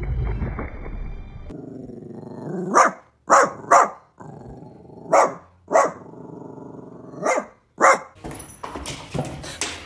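A dog barking, about seven short, loud barks spread over five seconds, with a low, steadier sound between them.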